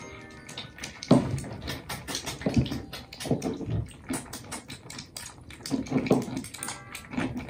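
Kittens of about one month eating wet food from bowls side by side: fast, irregular wet smacking and lapping clicks from several mouths at once.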